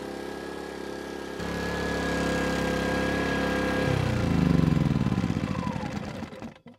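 Erayak 4500PDM dual-fuel inverter generator running, its engine note stepping up and growing louder about a second and a half in. About four seconds in it is switched off at the engine knob and winds down with a falling pitch, stopping just before the end.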